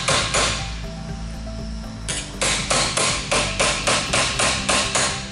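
Hammer striking the back end of a steel drift pin to start a pin into a plastic tabletop conveyor chain: two taps, a pause, then a steady run of about four taps a second.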